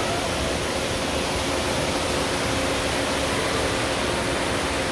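Steady rushing noise of falling water, with a faint steady hum under it.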